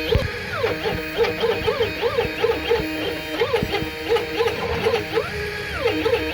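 CNC machine's stepper motors whining as the axes move: tones that sweep up and back down in pitch several times a second as each short move speeds up and slows down, with a few faint clicks.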